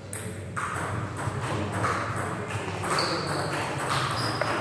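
Table tennis doubles rally: the celluloid ball clicking off paddles and the table in a quick, steady rhythm of about two hits a second.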